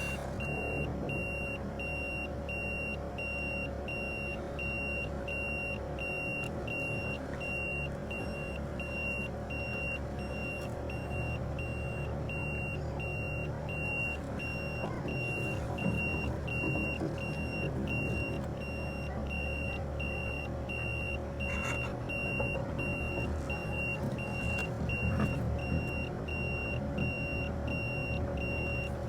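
A car's reverse-gear warning beeper sounding inside the cabin: a high beep repeating at an even rate, over the low hum of the car.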